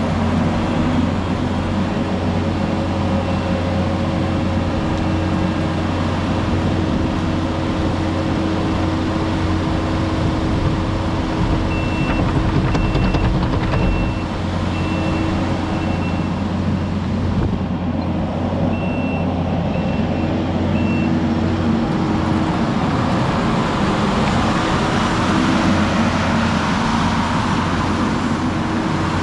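Heavy construction machine's engine running steadily, with a reversing alarm beeping in a run of about five beeps roughly halfway through and a shorter run of three a few seconds later.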